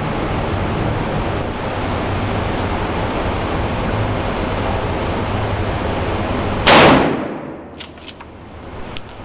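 One gunshot about two-thirds of the way through, over a steady rushing noise, followed by a few light clicks.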